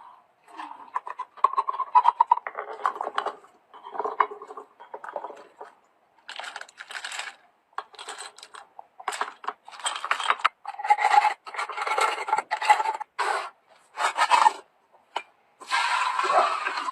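Containers and food packages being handled and set down while organizing a fridge: irregular clatters, knocks and rubbing rustles.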